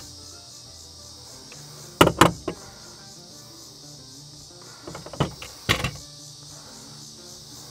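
Sharp knocks and clicks in two short clusters, about two seconds in and again around five to six seconds in, from handling the caulk gun and light strip against the hull of a plastic layout boat. Crickets chirp steadily underneath, with background music.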